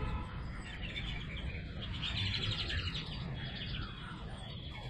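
Small birds chirping: a run of short, quickly repeated calls.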